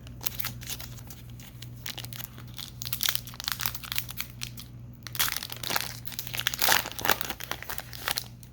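Plastic trading-card pack wrapper being crinkled and torn open, a run of crackling rustles that gets busier about five seconds in.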